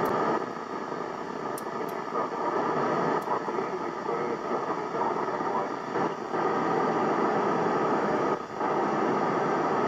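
Steady hiss of FM receiver noise from a Yaesu FT-847 transceiver tuned to the SO-50 satellite downlink near 436.8 MHz, the weak satellite signal low in the noise, with two brief dips about six and eight and a half seconds in.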